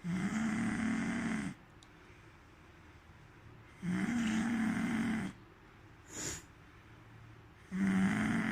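A person snoring: three long, pitched snores about four seconds apart, each lasting about a second and a half. A brief, fainter sound comes between the second and third.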